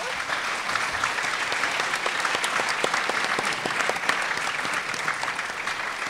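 Audience applauding: many people clapping together steadily, dying down a little at the very end.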